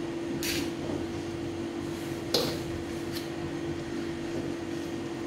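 A utensil tossing chow mein noodles in a wok, giving three short scrapes over a steady electric hum; the loudest scrape comes about two and a half seconds in.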